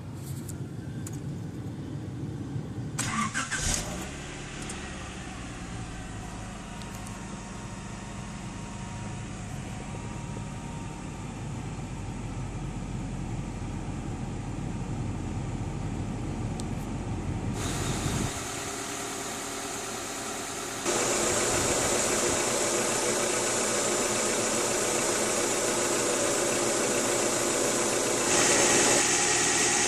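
Honda Prelude's H22A4 2.2-litre four-cylinder engine idling steadily on its first start after an oil, filter and coolant change, with a short louder burst a few seconds in. About two-thirds of the way through, a louder, wider rushing noise comes in and steps up again.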